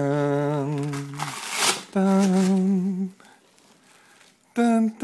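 A person humming long held notes, one at a time: a low note first, then a higher one about two seconds in, and another near the end. A short rustling noise falls between the first two notes.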